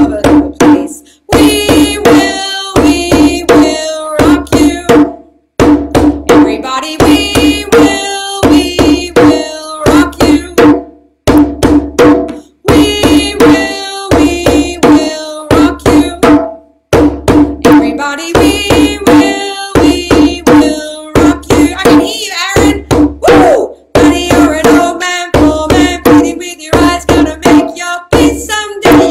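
A drum beaten in repeated runs of strikes, with short breaks between the phrases, and a voice singing along over it.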